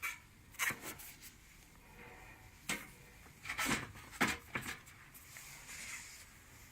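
Hard items from a tool set being handled and set down: a series of sharp clicks and knocks, some in quick pairs, followed by a short stretch of rustling near the end.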